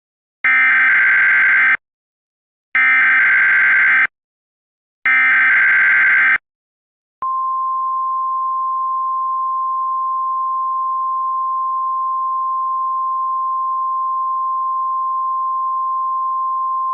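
Emergency Alert System SAME header: three bursts of digital data tones, each about a second and a half long, followed by the NOAA Weather Radio 1050 Hz warning alarm, a single steady tone held for about ten seconds. Together they announce an emergency weather alert.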